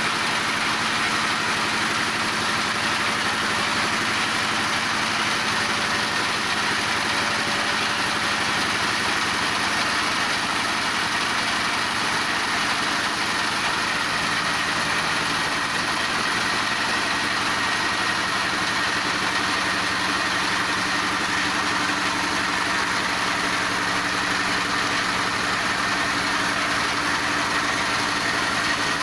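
Multifunction animal-feed pellet and grinding machine running steadily: a loud, even mechanical noise with a faint steady whine, unchanging throughout.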